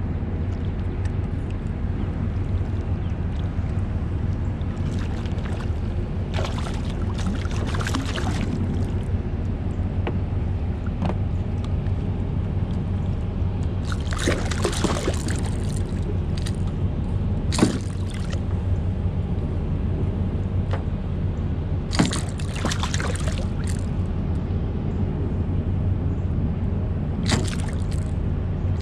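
Water splashing and dripping in four short bouts as a hooked striped bass is handled at the surface beside a kayak, over a steady low hum.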